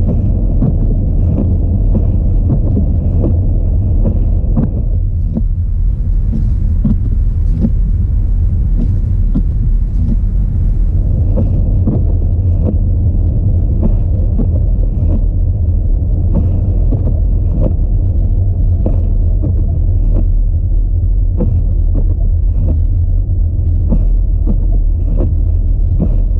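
Audi A4 driving on a snowy road: a loud, steady low rumble from the road and engine, with frequent short ticks throughout.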